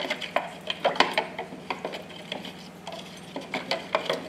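A spoon stirring soil into water in a jar, clinking and scraping against the sides in quick, irregular taps, with the loudest tap about a second in. A low steady hum sits underneath.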